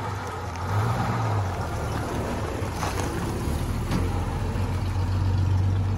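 1965 Ford F-110's 300 straight-six engine running as the truck drives off. It revs up briefly about a second in and runs louder over the last couple of seconds.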